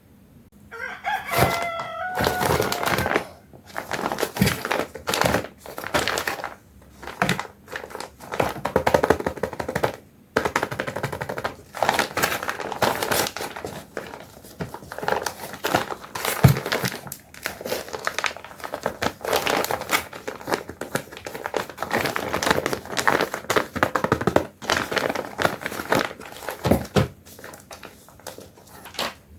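Plastic packaging crinkling and rustling with quick clicks and clatter of plastic toy parts being handled, going on almost without a break. About a second in, a short pitched call steps down in pitch for a couple of seconds over the rustling.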